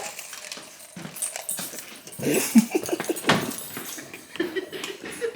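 Dog whimpering, with short high whines and yips a couple of seconds in and again near the end, among scattered knocks and rustling.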